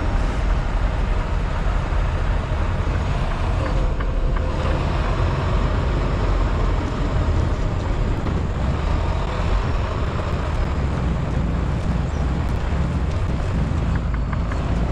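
Semi truck's diesel engine running at low revs with a steady rumble as the tractor slowly backs a trailer into a loading dock.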